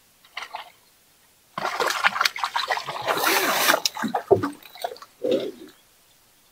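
A trout thrashing at the lake surface: a couple of small splashes, then about two and a half seconds of heavy splashing, and one last splash near the end.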